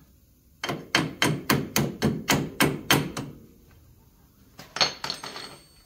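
Hammer striking a bolt in the front suspension and hub of a Polaris Ranger 400 side-by-side, driving it through: about ten quick metal-on-metal blows, roughly four a second. Near the end comes a single metallic clink that rings briefly.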